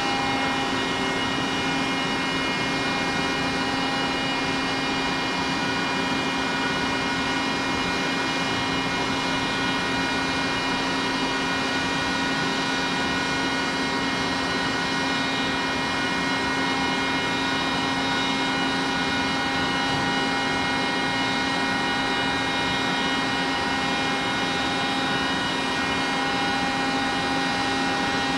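Testing machine running steadily through a compression test, a constant hum with several steady whining tones over a hiss.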